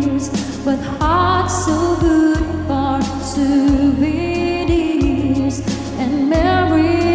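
Background music: a pop song with a sung melody over a steady beat.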